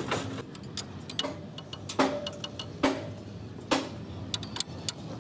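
Hammer striking steel truck-chassis parts: three sharp, ringing blows about a second apart, among lighter metallic clinks and taps, over a steady low hum.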